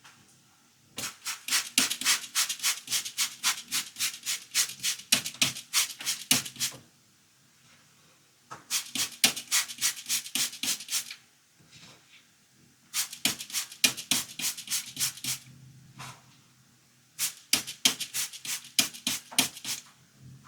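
A brush scrubbing a plastic toy car in four runs of quick back-and-forth strokes, about five a second, with short pauses between runs.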